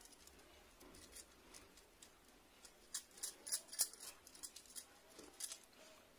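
Makeup brush sweeping over skin: faint, scratchy brushing strokes, a few short ones, most of them about three to four seconds in.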